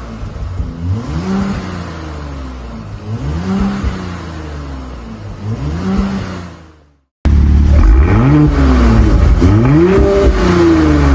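A 2024 Porsche Cayenne's 3.0-litre turbocharged V6 is revved through a Capristo valved aftermarket exhaust. There are about four rev blips with the exhaust valves closed, then a brief cut, then about three much louder blips with the valves open.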